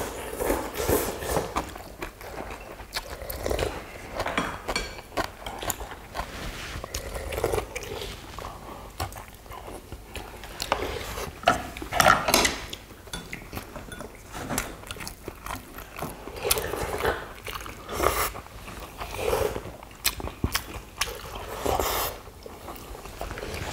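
Close-miked eating sounds: several people chewing and slurping spicy pollack stew and blanched greens, with frequent sharp clicks of chopsticks and spoons against bowls.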